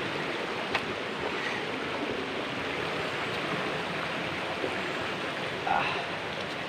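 Forest creek running, a steady rush of water, with a brief pitched sound near the end.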